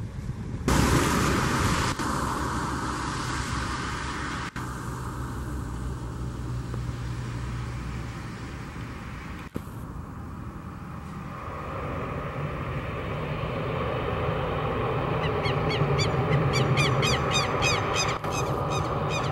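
Steady airliner engine rumble, broken by abrupt cuts between clips. Then an ATR twin-turboprop's engines and propellers grow louder from about halfway through as it rolls along the wet runway toward the listener.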